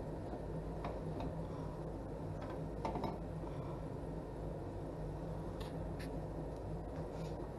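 A ceramic casserole dish knocking and scraping on a toaster oven's wire rack as it is lifted out with oven mitts: a few light clicks and one louder clunk about three seconds in, over a steady low hum.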